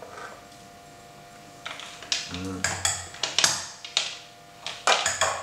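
Small folding mini gas stove being handled, its metal legs and pot supports clicking and clattering as they are swung out and set in place. The clatter starts a little under two seconds in and comes in quick bursts of metal-on-metal clicks.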